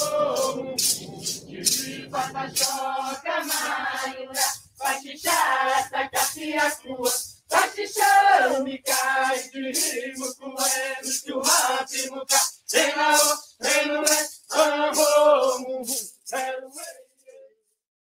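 Group of voices singing an indigenous Brazilian dance chant, with rattles shaken on a steady beat about twice a second. The song stops near the end.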